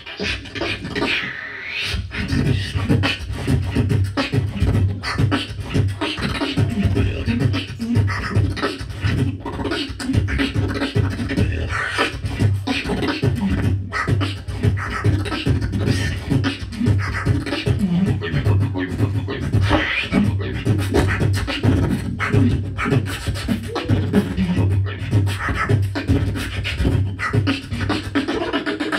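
Beatboxer performing a solo round into a handheld microphone: a fast, continuous stream of percussive mouth sounds, with a held low bass sound under it from about two seconds in.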